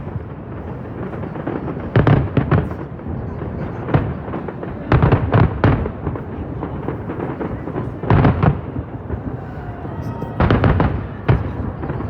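Aerial fireworks bursting overhead in quick clusters of loud bangs, a cluster about every three seconds, with a steady rumble between them.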